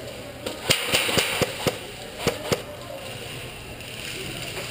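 Airsoft guns firing a quick string of semi-automatic shots, sharp cracks about four a second for the first two and a half seconds, then a pause.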